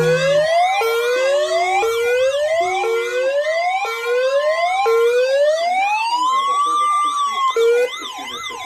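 Several electronic siren tones layered together: a whoop that sweeps upward and resets about once a second, over a fast up-and-down yelp, giving way about five seconds in to a long slow wail that rises and falls. The level drops near the end.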